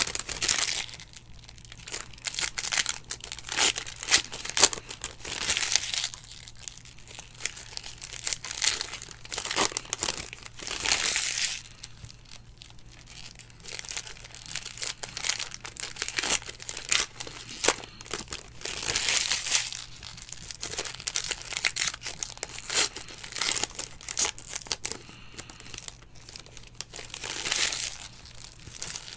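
Foil wrappers of Panini Certified football card packs crinkling and tearing in repeated bursts as they are ripped open and handled by hand, over a faint steady low hum.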